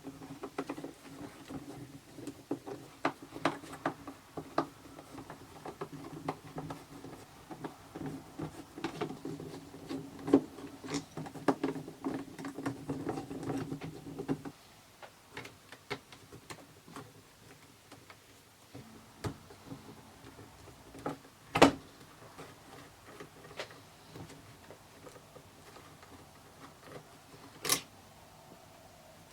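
Small clicks and taps of the instrument cluster from a 1993 Porsche 968 being taken apart by hand, over a steady low hum that stops about halfway through. Two sharper knocks follow in the second half.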